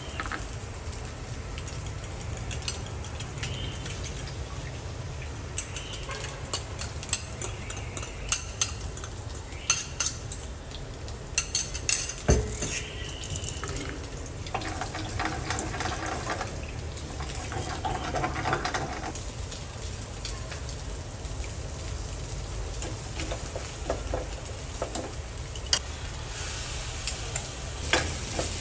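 Sausage slices, beaten egg and rice noodles stir-frying in an aluminium wok, with a metal ladle clinking and scraping against the pan. The clinks come thick and fast in the first half, over a steady low hum.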